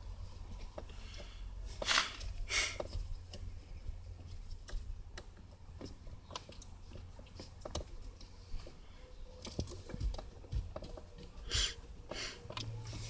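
Scattered light clicks and taps of hand work on a car's ignition switch: a small screwdriver and the plastic switch housing and wiring being handled, with a few sharper clicks, over a low steady rumble.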